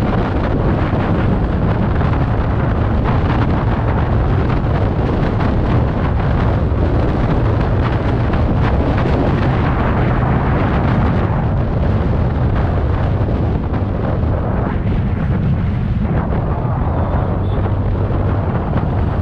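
Heavy wind buffeting on the microphone of a scooter travelling at about 60 km/h, with the TVS Ntorq 125's single-cylinder engine running underneath as a steady low hum.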